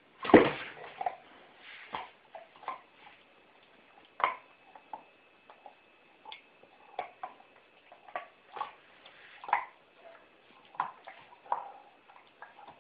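Dog playing with a ball: irregular knocks, thumps and scuffles, the loudest a thump just after the start.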